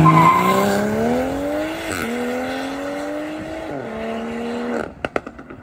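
Car engine accelerating: its pitch climbs steadily for about two seconds, drops suddenly at an upshift, then holds fairly steady before easing and cutting off near the end, followed by a few faint clicks.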